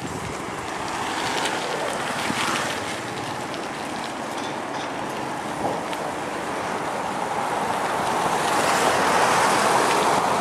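Wind rushing over the microphone of a camera held by a rider cycling along a street, with road traffic around; the rush grows louder near the end.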